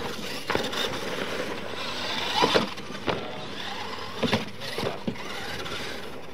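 Radio-controlled scale monster trucks racing on a dirt track, their motors and drivetrains whining and rising and falling in pitch, with about five sharp knocks and clatters as the trucks hit ramps and land, the loudest about two and a half seconds in.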